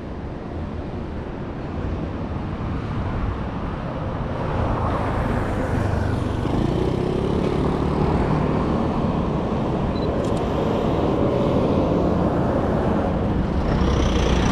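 City road traffic at an intersection: vehicles running past, growing louder a few seconds in, with one engine rising in pitch through the middle. Near the end a small cab-over truck passes close and a high thin whine comes in.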